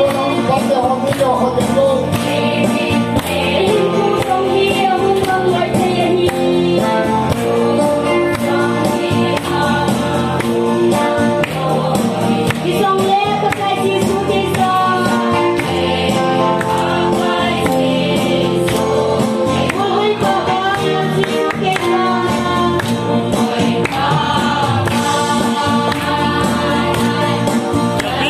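A congregation of men and women singing a gospel hymn together, accompanied by an electronic keyboard and a steady drumbeat.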